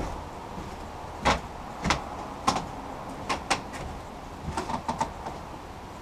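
Footsteps on a wooden plank deck, sharp knocks about every half second, followed near the end by a quick run of lighter clicks and knocks.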